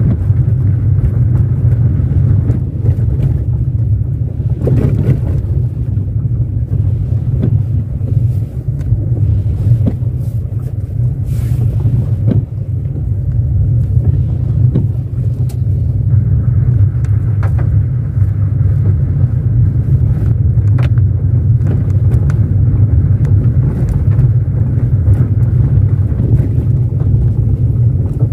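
Car driving on a dirt road, heard from inside the cabin: a steady low rumble of tyres and engine, with scattered small knocks and clicks from the rough surface.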